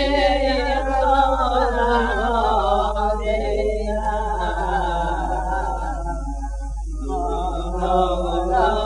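A man singing a Yemenite Jewish shira unaccompanied, in the Sana'a style, with long wavering ornamented notes, over a steady low hum.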